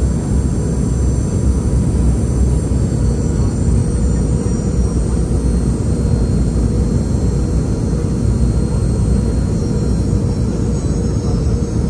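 Cabin noise inside a Boeing 717-200 airliner: a steady low roar of airflow and engines, with a faint high whine from its rear-mounted Rolls-Royce BR715 turbofans.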